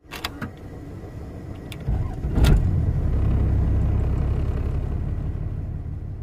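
Hino Ranger truck's diesel engine starting: a few clicks, then the starter cranks about two seconds in and the engine catches with a loud burst. It settles into a steady idle.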